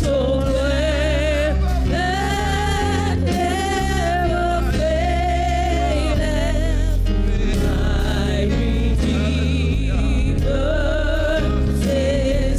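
A group of women singing a gospel song in harmony into microphones over instrumental backing, with long held notes sung with vibrato.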